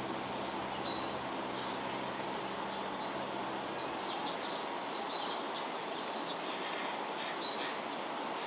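Steady outdoor background noise with small birds giving short high chirps now and then. A low held chord of background music fades out about four seconds in.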